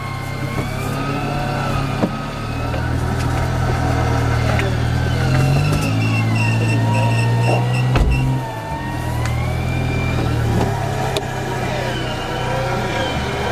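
Electric front-bumper winch on an off-road Suzuki Jimny whining under load as it reels in its cable and drags the vehicle forward through the mud, with the engine running underneath. The winch's whine wavers up and down in pitch as the pull changes.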